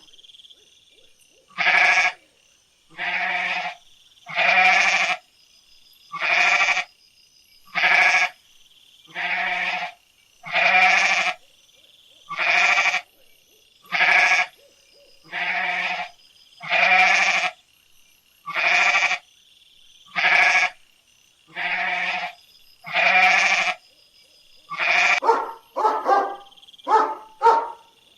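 A bleating farm animal calling over and over, one evenly spaced bleat a little more than every second, each about half a second long and much alike. Near the end a run of shorter, quicker calls takes over.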